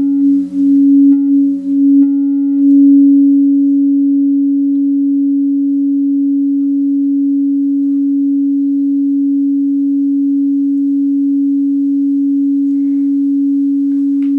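Singing bowl sounding one sustained, pure, steady tone, with weaker tones a little below and above it. The tone wavers in loudness for the first couple of seconds, then holds evenly.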